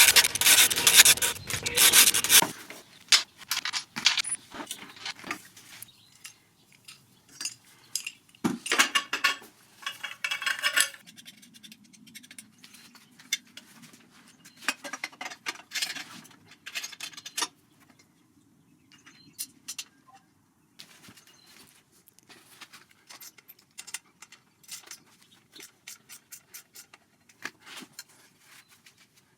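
Scraping and rubbing for about the first two seconds, then scattered sharp clicks and metallic clinks, with another stretch of scraping about a third of the way in. These are the handling sounds of tools and metal parts during the exhaust removal and fitting.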